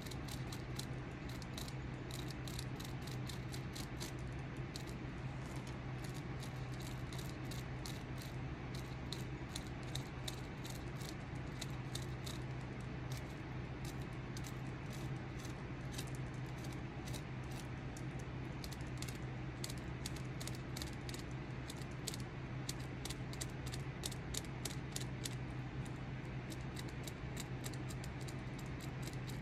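Hand carving tool cutting into a wooden walking stick in quick short strokes, a rapid dry ticking and scraping at about four strokes a second. A steady low hum runs underneath.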